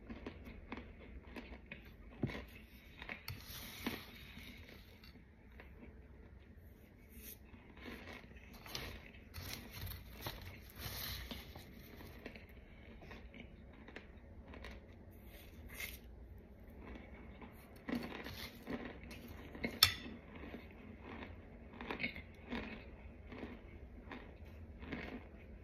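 Metal spoon scooping and scraping through a plate of powdery white chunks, with scattered soft crackles and clicks of spoon on plate and a sharper click about twenty seconds in.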